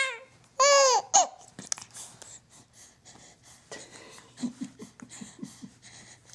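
Baby's high-pitched squeal that slides down in pitch right at the start, then a quick run of short breathy giggles about four seconds in.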